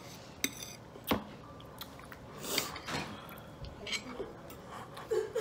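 Close-miked eating: people chewing and smacking on barbecued chicken wings and baked beans, with a few sharp clicks, and a short hum near the end.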